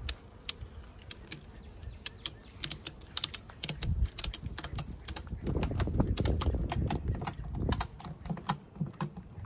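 Ratchet strap being cranked tight around a beehive: a run of quick, irregular ratchet clicks, with dull handling thumps and rubbing in the middle seconds.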